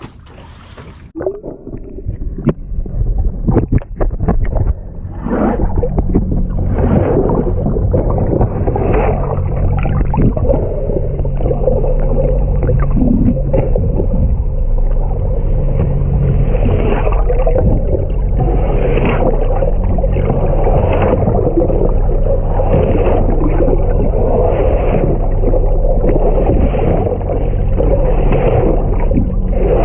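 Boat under way: an engine hums steadily beneath rushing water, which swells and slaps against the hull about every two seconds. A few clicks and knocks come in the first seconds before the steady sound builds.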